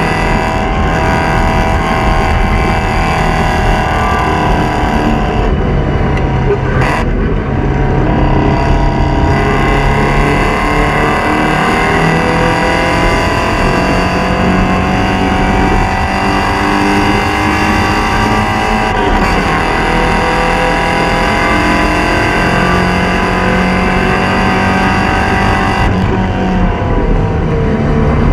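Porsche 944 Spec race car's four-cylinder engine at race pace, its pitch climbing slowly under acceleration and dropping sharply on lifts and downshifts about six seconds in, about nineteen seconds in and near the end.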